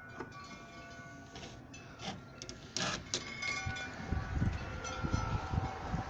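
Wind chimes ringing irregularly in a strong windstorm, their tones lingering and overlapping, with gusts of wind buffeting the microphone from about four seconds in.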